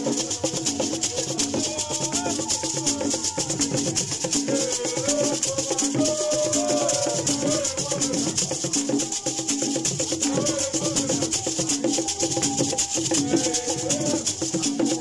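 Live traditional drumming and group singing: beaded gourd rattles shaken in a fast, steady rhythm over stick-played drums, with voices singing a melody together.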